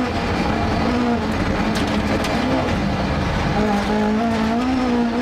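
Rally car engine heard from on board at speed. Its note drops and picks up again several times as the driver lifts and changes gear, then climbs steadily near the end, with road and tyre noise underneath.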